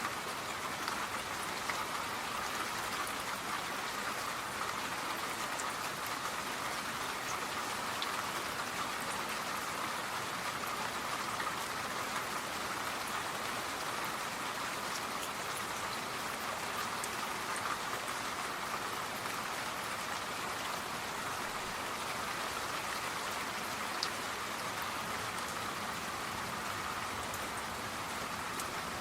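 Steady rain falling, an even hiss flecked with small drop ticks, without let-up.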